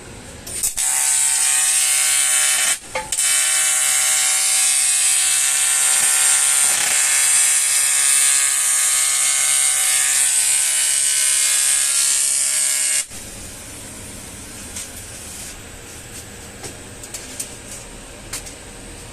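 Argon (TIG) welding arc buzzing while a cast aluminium alloy wheel is welded. The buzz is steady and loud, breaks off briefly near the start, then runs on until it stops about two-thirds of the way through, leaving faint clicks.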